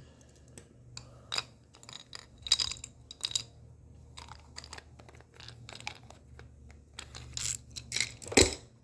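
Hand tools being handled and taken out of a tool bag: scattered clicks and clinks, with some rustling in between.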